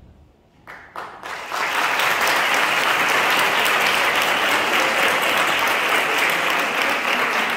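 Theatre audience applauding: a few scattered claps about a second in, swelling quickly into full, steady applause.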